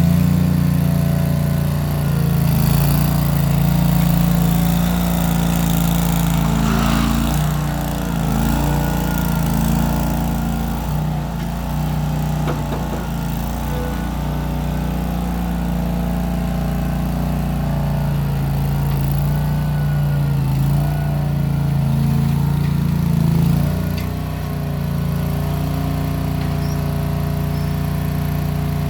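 Case 1816 skid steer's replacement engine running steadily while working, its pitch and level shifting slightly with the load and settling a little lower near the end.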